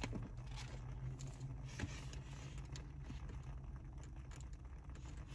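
Faint handling of a paper letter, with a few soft ticks, over a low steady hum.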